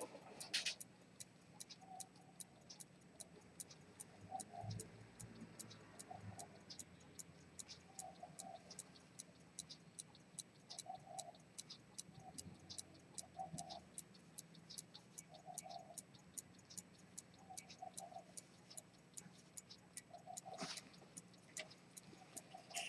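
Key-wound 18k gold Dent fusee pocket watch with a pivoted-detent chronometer escapement, ticking faintly and evenly. One louder click comes near the end.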